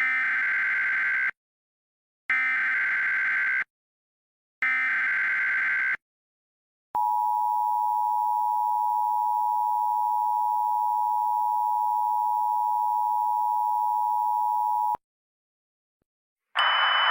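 Emergency Alert System SAME header: three short, identical bursts of screeching digital data tones, then the two-tone EAS attention signal held steady for about eight seconds before cutting off suddenly. Just before the end, a hiss of radio static with a high whine starts.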